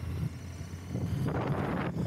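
Motorcycle riding along, a low engine rumble under wind noise on the microphone, with a louder rush of noise lasting about a second near the middle.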